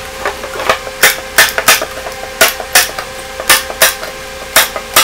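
Hand staple gun driving staples through screen-printing mesh into a wooden frame, one after another as the mesh is pulled tight: sharp clacks, mostly in quick pairs, about one pair a second.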